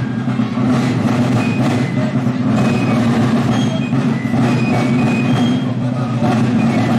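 Marching band of a folkloric march company playing outdoors: regular drum beats with short, high fife notes over a steady low rumble.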